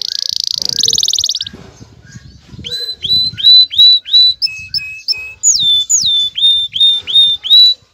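Male domestic canary singing its breeding song. It opens with a fast buzzing trill for about a second and a half, then gives a run of repeated rising whistled notes about three a second, a few lower flat notes, and notes that drop from high to mid pitch near the end.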